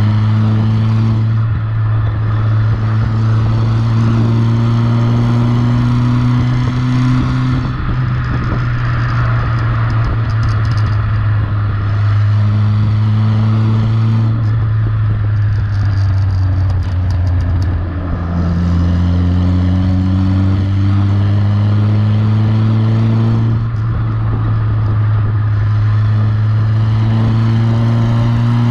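Renault Super 5 GTS exhaust with the intermediate silencer removed and replaced by a straight tube, heard at the tail of the car while driving. The engine note climbs slowly and drops back several times, over road and wind noise.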